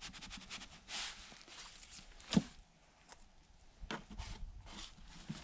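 Dirt being scraped and sifted by hand over a set foothold trap: scattered scratches and rustles, with one sharper knock a little past two seconds in.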